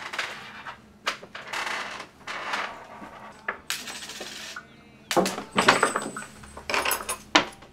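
Metal utensils scraping and clinking against tin plates: a string of short scrapes and sharp metallic clinks, a few of them ringing briefly.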